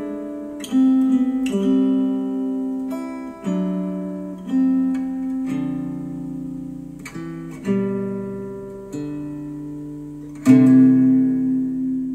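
Acoustic guitar music played back through Micca RB42 bookshelf speakers: slow plucked chords, each left to ring and fade. The last chord, about ten seconds in, dies away.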